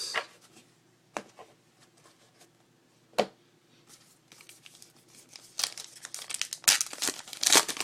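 A trading-card pack wrapper being torn open and crinkled by hand. There are a few light clicks and rustles at first, then dense crinkling and tearing over the last two seconds or so.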